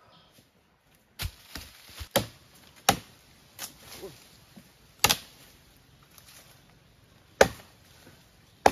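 Machete chopping into dry wood: a series of sharp, irregularly spaced strikes, about one to two seconds apart.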